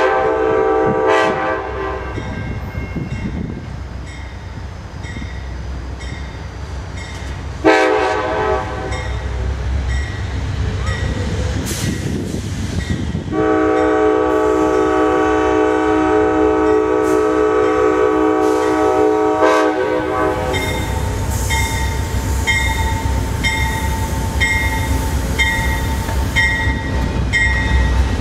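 Amtrak P42DC diesel locomotive sounding its horn for a grade crossing: a long blast ending about two seconds in, a short blast near eight seconds, and a long blast from about thirteen to twenty seconds. The deep rumble of the approaching train grows under it, and a grade-crossing warning bell dings steadily throughout.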